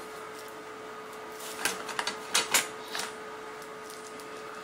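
Metal link bracelet of a replica Casio Edifice EF-550 watch clicking and clinking as the watch is turned over in the hands: a quick cluster of sharp clicks in the middle, over a faint steady hum.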